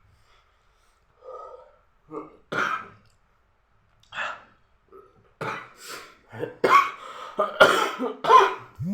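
A person with a dry cough coughing and clearing their throat: a few single coughs in the first half, then a run of loud, harsh coughs from about halfway to near the end.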